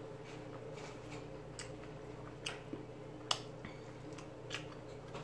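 Eating sounds at the mouth: sucking and chewing meat off a neck bone, with a few faint wet clicks and smacks, the most prominent about three seconds in.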